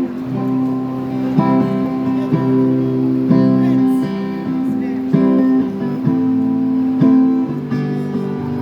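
Acoustic guitar strumming slow chords, about one stroke a second, in an instrumental passage of a ballad with no singing.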